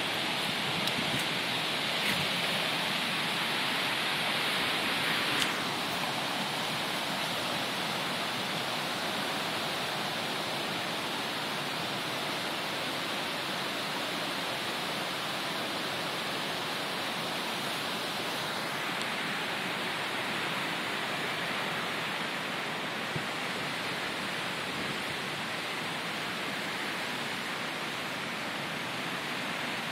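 Steady rush of a flooding creek, its high, fast brown water churning past. A light knock comes about five seconds in.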